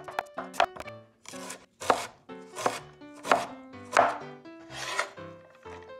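Cleaver chopping a carrot into thin strips on a wooden cutting board: a quick run of chops in the first second, then single chops about every two-thirds of a second.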